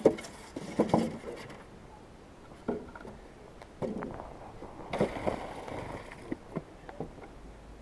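A series of irregular knocks and scrapes, about seven or eight sharp strikes spread unevenly.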